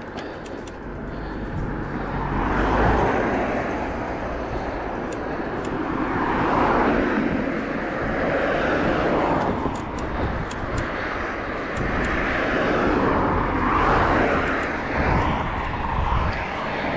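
Several cars passing one after another in the opposite lane, each tyre-and-engine rush swelling and fading over a second or two, over a steady low rumble of wind on the microphone of a moving bicycle.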